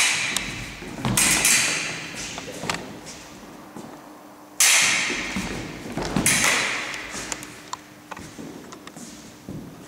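Fencing footwork stamping on a wooden sports-hall floor mixed with foil blades striking, four loud hits with lighter taps between, each ringing on in the hall's echo.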